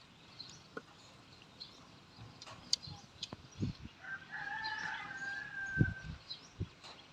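A rooster crowing once, a single held call of about two seconds a little past halfway, with scattered small clicks and soft thumps around it.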